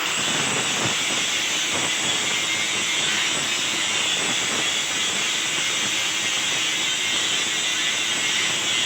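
Stick (arc) welding: a steady crackling sizzle from the welding arc as a bead is laid on the steel grill.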